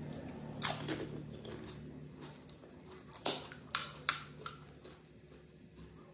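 Crisp panipuri shells crunching as a whole puri is bitten and chewed: a run of sharp, irregular crunches, loudest around the middle, dying away towards the end.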